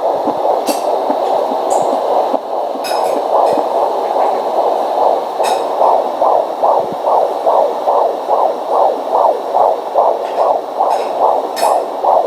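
An 18-week fetus's heartbeat through a fetal Doppler's speaker. At first it is a swishing whoosh, then from about four seconds in it becomes a clear, fast, regular galloping pulse of about two and a half beats a second, with a few brief clicks over it.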